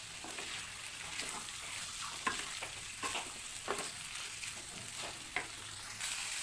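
Spatula stirring a potato and boiled-chicken samosa filling in a hot oiled pan: a steady sizzle with a scrape or knock of the spatula against the pan roughly once a second.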